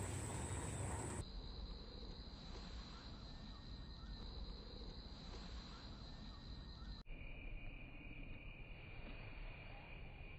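Faint, steady, high-pitched insect trill over low outdoor background noise.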